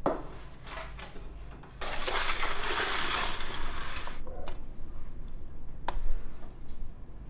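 Steel roasting tray scraping across the brick floor of a wood-fired dome oven as it is pushed in: a rasping metal-on-stone scrape of about two seconds, with a knock at the start and a sharp clack near the end.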